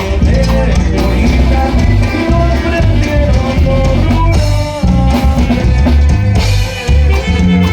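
Norteño band playing a corrido, with a drum kit and bass keeping a steady beat under held melodic lines.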